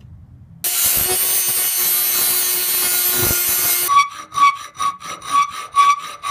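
A Dremel rotary tool with a cutting wheel runs steadily, cutting notches in 3/16-inch steel, for about three seconds. Then a half-round file is pushed across the steel in quick strokes, about three a second, each stroke ringing.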